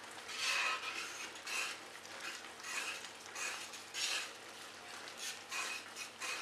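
Metal ladle stirring rice ada through bubbling, thickening jaggery syrup in a metal pot: repeated soft scraping swishes, roughly one or two a second. The syrup is being reduced until nearly all its water has cooked off.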